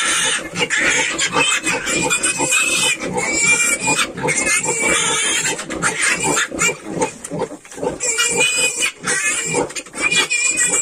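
Yorkshire piglets squealing and grunting continuously while they suckle at the sow, many high-pitched squeals overlapping.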